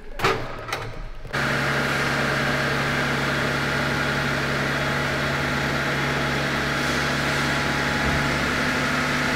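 Steady mechanical running of an automatic-transmission oil-flush machine pumping fluid through the gearbox while the Maybach's V12 biturbo engine idles to circulate it. It starts suddenly about a second in, after a couple of short knocks, and holds an even hum with a few constant low tones.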